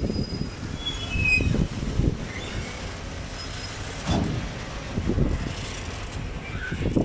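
Freight train of open-top ore wagons rolling slowly past: a steady low rumble broken by irregular heavy clunks from the wagons, with a few brief, thin, high wheel squeals.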